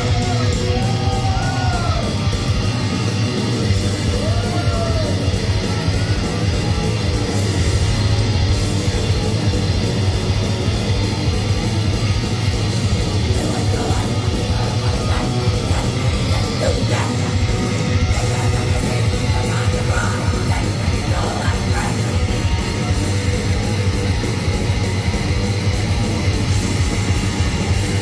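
Live heavy metal: loud electric guitar over a steady, heavy low end, with no break.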